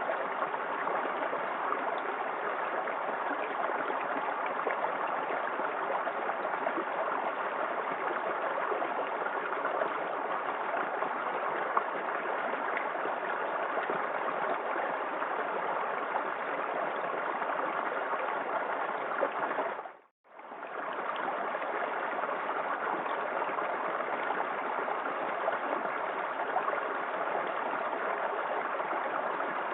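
Small waterfall in a forest creek, the water rushing and splashing steadily. The sound fades out and back in within about a second, roughly two-thirds of the way through.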